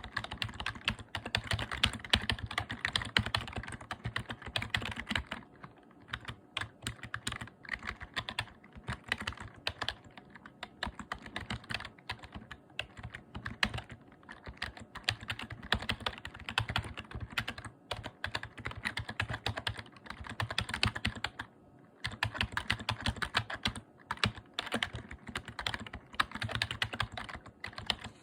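Fast, continuous typing on a membrane keyboard, a dense run of soft key clicks. It slows in a few places and stops briefly about two-thirds through; the slowdowns are where the typist hit a wrong key.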